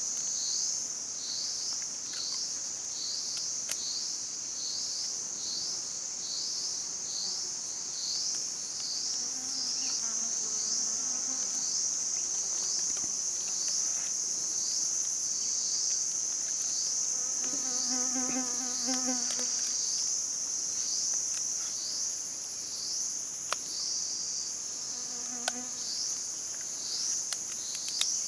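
A dense, high-pitched chorus of forest insects buzzing, pulsing in quick repeated sweeps for the first half and again near the end, steady in between.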